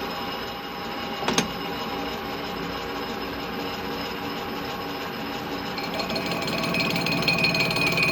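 Metal lathe running steadily while refacing a cast clutch backplate. There is a single sharp click about a second in, and the machine's sound grows louder, with a stronger high whine, about six seconds in.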